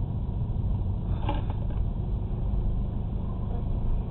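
Steady low engine and road rumble inside a moving car, picked up by a dashcam's microphone, with a faint short sound about a second and a half in.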